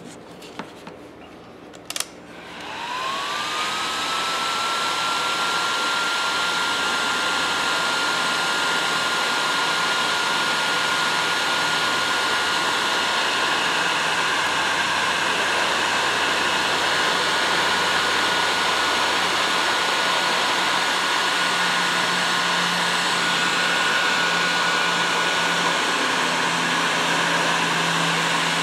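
Electric heat gun switched on with a click about two seconds in. Its fan spins up with a rising whine that levels off into a steady high tone over the rush of blowing air, and it keeps running steadily.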